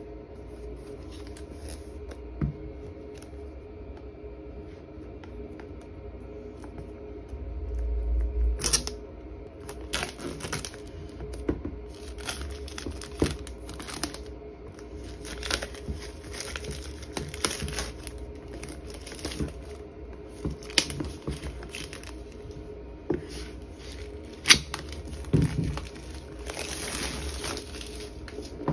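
Keyboard packaging being opened and handled by hand: crinkling and tearing of wrapping with scattered clicks and knocks of the box, sparse at first and busier from about eight seconds in.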